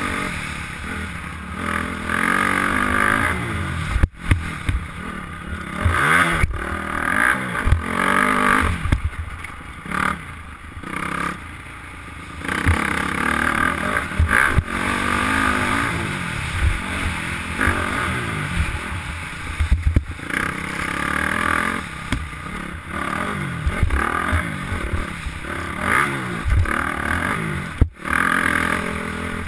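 2008 Honda CRF250R's single-cylinder four-stroke engine being ridden hard, revving up and falling off again and again as the throttle opens and closes, with brief sharp drops about four seconds in and near the end.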